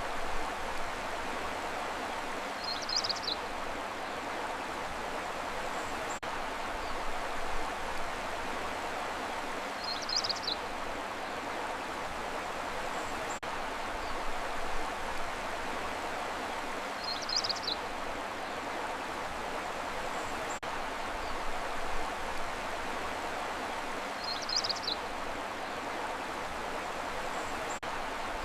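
Steady rushing of running water, like a stream, in an ambient nature loop. A short high chirp comes about every seven seconds, four times in all.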